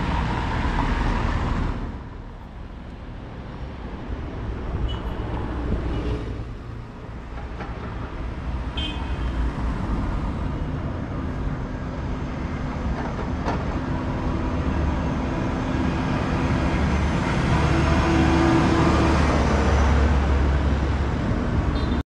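Road traffic: motor vehicles passing on a city street, with the sound dipping a couple of seconds in and building to its loudest as a vehicle goes by near the end.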